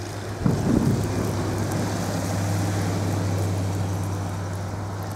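An engine running at a steady pitch, growing a little louder in the middle and easing off toward the end, under wind gusting across the microphone.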